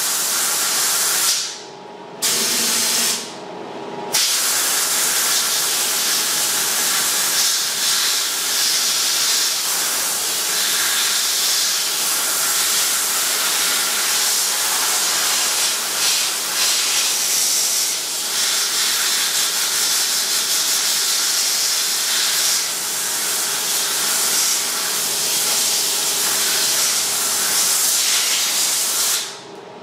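Compressed air hissing steadily from a pneumatic blow gun held at a hole in a steel axle brace. The air is cut off twice for a moment in the first few seconds, then runs on and stops once more near the end.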